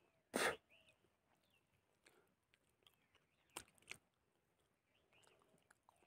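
Close-up mouth sounds of a man eating fish and rice by hand: a short loud smack about half a second in, soft chewing, then two sharp lip smacks as he takes another mouthful.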